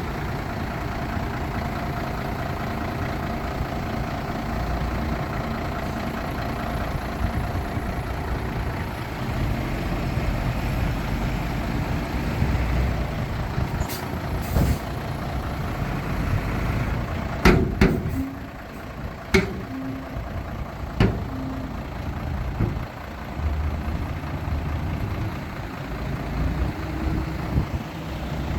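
Heavy diesel dump trucks and earthmoving machinery running steadily. A brief hiss comes about halfway through, then several sharp bangs a little later.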